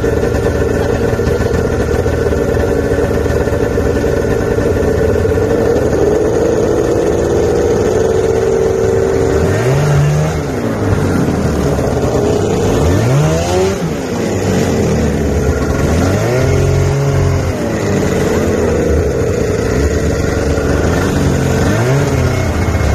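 Snowmobile engine running at a steady pitch, then from about ten seconds in revving up and falling back several times as the machine speeds up and slows over the snow.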